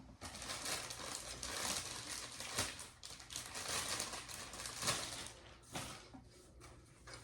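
Rustling and crinkling with scattered small clicks and knocks as animatronic parts are handled and fitted together, busiest over the first five seconds and sparser after.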